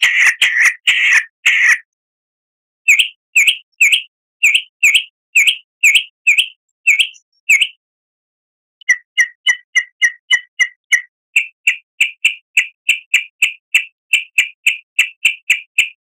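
Recorded songbird calls used as a bird lure: runs of short, sharp chirps with clean pauses between them, spaced at first and then a fast steady run of about four to five chirps a second through the second half.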